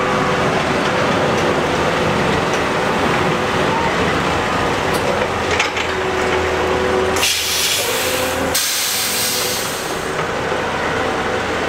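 Heavy diesel machinery running steadily, with two loud bursts of hissing air, the first about seven seconds in and the second right after it, each lasting about a second and a half.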